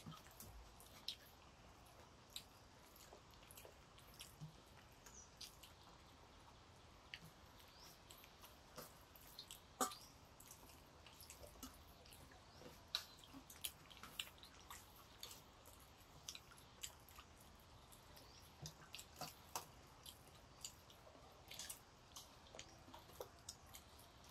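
Faint eating sounds: scattered small clicks and smacks of chewing and of fingers mixing rice and curry on steel plates. The loudest comes about ten seconds in.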